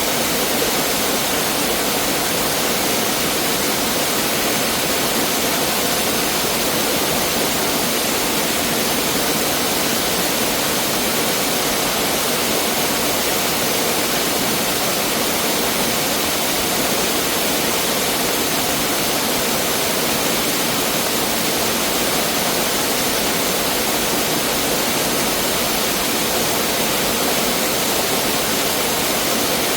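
Mountain stream water rushing over rocks in a steady, unbroken flow.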